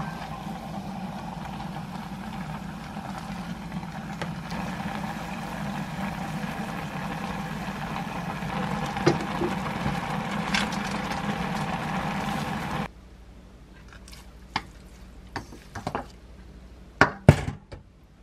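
Vegetables and broth cooking in a pot on a gas stove under a steady hum, with a spatula stirring and knocking against the pot. The hum stops suddenly about 13 seconds in, and a few sharp clinks of utensils against the pot and bowl follow.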